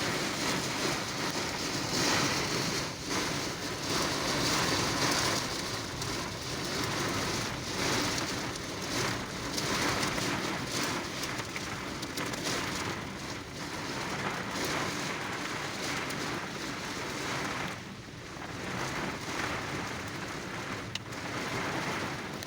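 Hail and heavy rain pelting down in a dense, steady clatter of countless small hits, easing briefly about eighteen seconds in.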